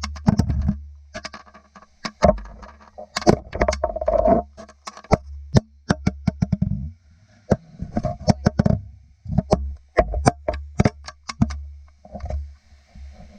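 Irregular sharp clicks and knocks, dozens of them in quick clusters, over a low rumble.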